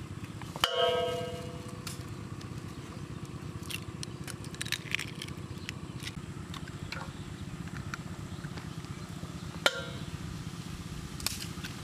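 Eggs being cracked: a few sharp taps and lighter clicks, the loudest about a second in ringing briefly, over a steady low background rumble.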